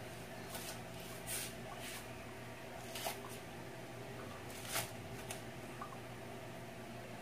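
Kitchen knife chopping through fibrous green stalks on a wooden cutting board: a series of short, crisp cuts at an uneven pace, about eight in all.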